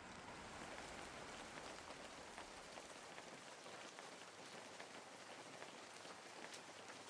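Light rain falling, a faint steady patter with scattered individual drips.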